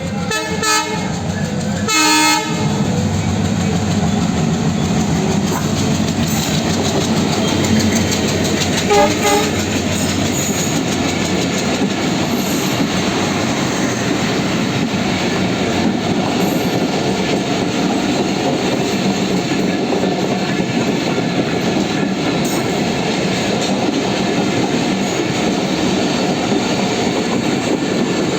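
Bangladesh Railway Rupsha Express train sounding short horn blasts, two near the start and a brief one about nine seconds in. Under them its wheels clatter steadily over the rails as it runs.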